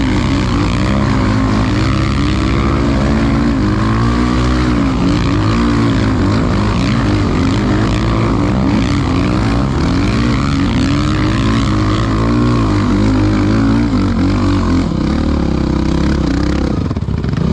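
ATV engine running hard on sand, its pitch rising and falling over and over as the throttle is worked.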